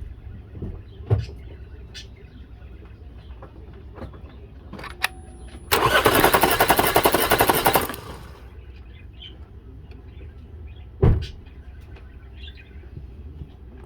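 Starter motor cranking the 2016 Chevy Cruze's engine for about two seconds, with fast, even pulses, for a compression test on the third cylinder (which reads 130–140 psi). A single thump comes about eleven seconds in.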